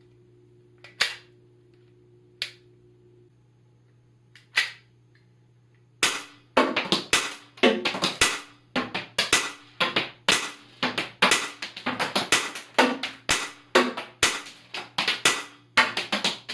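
Glock 17 model gun with an FD917 suppressor firing caps: three separate sharp reports in the first few seconds, then a long fast string of shots at about two to three a second.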